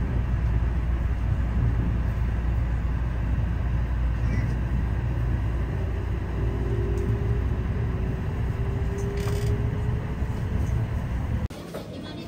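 A local train running, with a steady low rumble and a faint thin whine that comes in about halfway through and rises slightly. The sound cuts off suddenly near the end.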